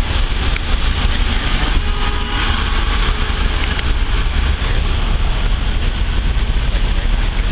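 Steady rumble of idling vehicle engines and passing street traffic, loud and unbroken, with a deep low drone under a noisy hiss.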